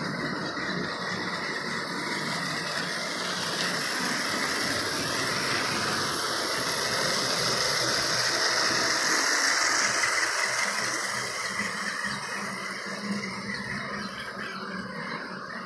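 H0-scale model armoured train, hauled by a BR55 steam locomotive model, running along the layout track: a steady electric-motor whine with the wheels rattling on the rails. It grows louder as the train passes close about nine seconds in, then fades.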